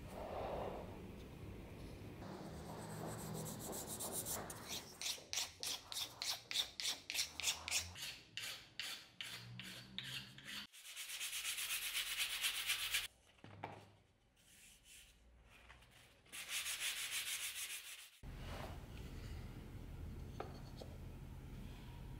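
A wooden knife sheath is worked by hand with an abrasive, in quick back-and-forth rubbing strokes at about three a second, then in two stretches of steady scraping.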